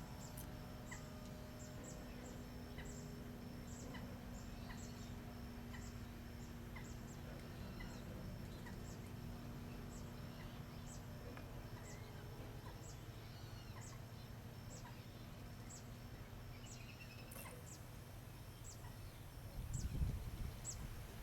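Bird calls: short, high chirps that slide downward, repeated irregularly about once or twice a second over a low outdoor rumble. Near the end there is a brief, louder low rumble.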